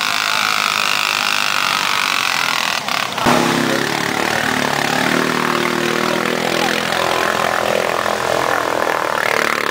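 ATV engines running hard as the quads churn through deep mud and water. About three seconds in there is a brief knock, and the sound changes abruptly to a lower, louder engine note that holds steady.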